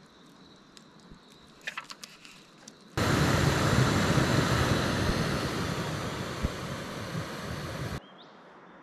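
Canister gas backpacking stove burning with a loud, steady hiss that starts suddenly about three seconds in, slowly fades, and cuts off abruptly about eight seconds in. Before it, only a faint background with a few small clicks.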